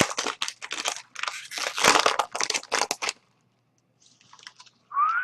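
Baseball card pack wrapper being torn open and crinkled, a rapid crackling for about three seconds that then stops, with a few faint rustles and a brief rising squeak near the end.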